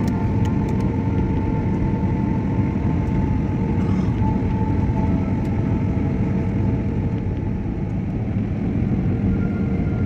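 Steady cabin noise of an Airbus A320-family jet airliner on its descent: a constant low rumble of engines and rushing air, with a few faint steady tones above it.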